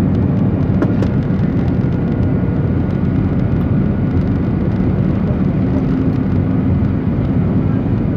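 Airbus A320 cabin noise from a window seat over the wing on descent: a steady, loud rumble of engines and rushing air, with a faint steady whine from about a second in.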